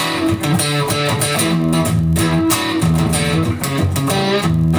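Intro music: an electric guitar playing over bass and a steady beat.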